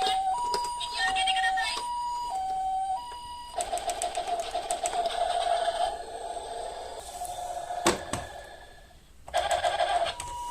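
Electronic Japanese ambulance hi-lo "pee-poh" siren, two notes alternating about twice a second. In the middle it gives way to a buzzy, pulsing steady siren tone with a sharp click, then the hi-lo pattern starts again near the end.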